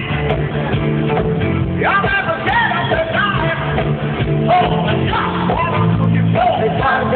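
Live band playing in an arena: a singer's melody over steady bass and guitar, recorded from the crowd.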